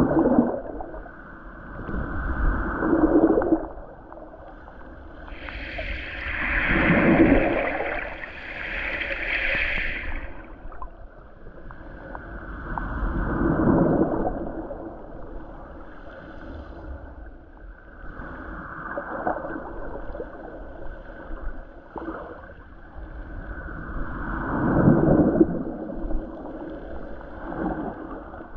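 Gong and water sounds with a wavering, bending pitch, swelling and fading in slow waves about every five or six seconds, the biggest swell about six to ten seconds in.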